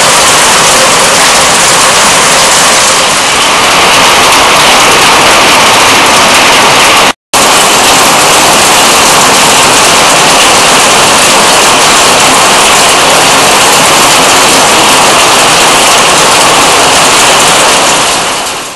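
Heavy rain pouring down in a thunderstorm, a loud, steady, even hiss. It cuts out for a moment about seven seconds in and fades out at the end.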